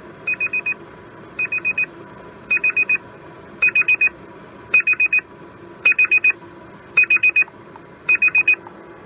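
Freefish digital alarm clock's alarm sounding: quick, high beeps in groups of four, a group about once a second. The beeps grow louder over the first several seconds and drop back a little near the end as the alarm volume is set with the plus and minus buttons.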